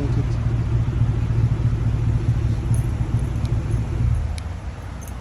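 2018 Chevy Tahoe's 5.3-litre V8 running with a resonator delete and a straight-through Borla muffler, giving a steady low exhaust rumble that falls quieter a little after four seconds in.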